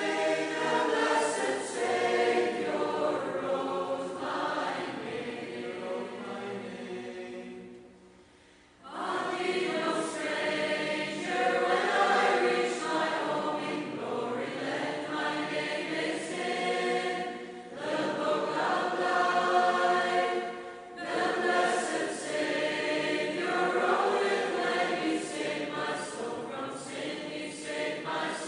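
A choir singing, in long continuous phrases with a short break about eight seconds in.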